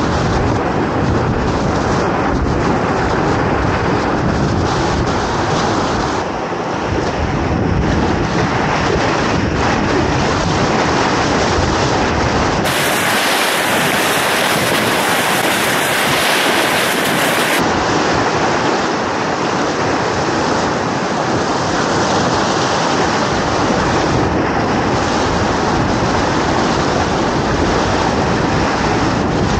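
Whitewater of a big-volume river rapid rushing loudly and steadily around a kayak, heard up close from the boat. For about five seconds near the middle the rush turns brighter and more hissing.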